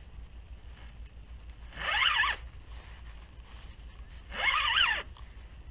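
Spinning reel's drag buzzing as a hooked fish pulls line: two short runs, about two seconds in and again near the end.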